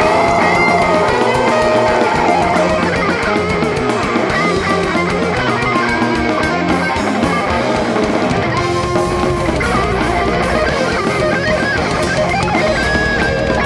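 Heavy metal music with distorted electric guitars, a melodic lead guitar line playing over the dense rhythm parts.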